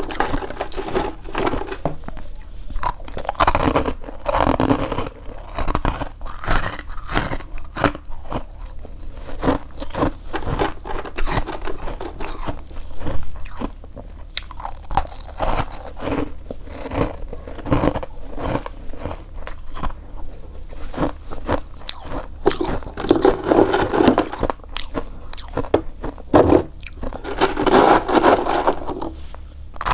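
Someone biting and chewing freezer frost close to the microphone: a dense run of crisp crunches, with louder bouts of chewing a few seconds in and again near the end.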